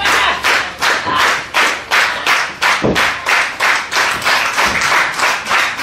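Wrestling crowd clapping in unison in a fast, steady rhythm of about four claps a second. A low thud from the ring comes about three seconds in.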